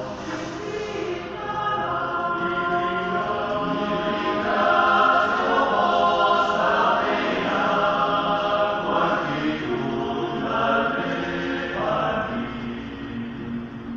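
Male alpine choir singing unaccompanied in held, full chords, swelling louder in the middle of the passage and softening toward the end.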